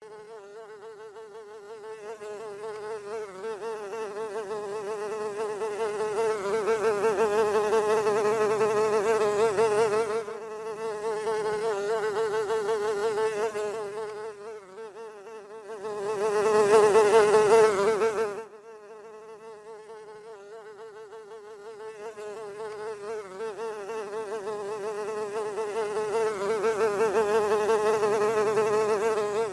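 A fly buzzing in flight: a steady wing hum with many overtones that swells and fades as it comes close and moves off, loudest a little past halfway before dropping away suddenly, then building again near the end.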